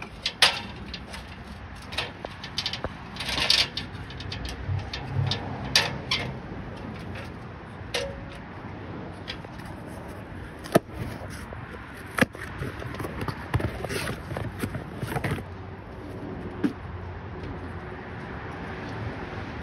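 Irregular metallic clicks, clanks and knocks with some rustling, from hands-on work at a Carrier reefer unit's engine compartment as its air filter is taken out and an aluminium ladder is shifted against the unit.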